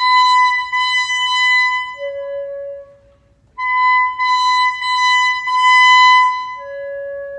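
Alto saxophone playing a single line unaccompanied: a long held high note, then a drop to a softer, lower note. The phrase stops briefly about three seconds in and is then played again.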